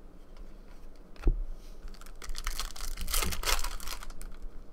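Trading cards handled and flipped by hand, with one sharp knock about a second in and a stretch of crinkly rustling from about two to nearly four seconds in.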